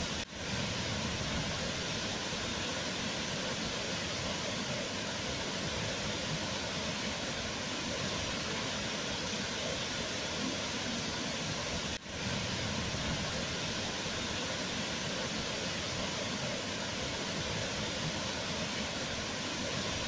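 Wide waterfall pouring over a rock ledge into a pool: a steady, even rush of falling water, with two brief dips in level, just after the start and about twelve seconds in.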